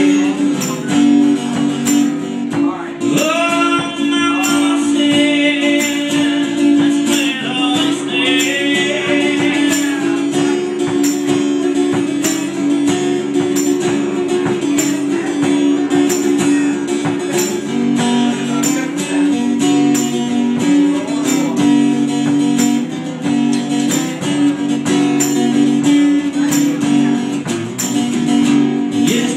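Live acoustic music: two acoustic guitars strumming and picking together, with a steady high percussive tick keeping the beat.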